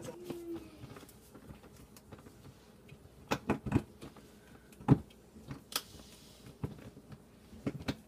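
A handful of separate sharp clicks and knocks from a Phillips screwdriver working the screws and plastic parts of a dishwasher's upper water line inside the tub.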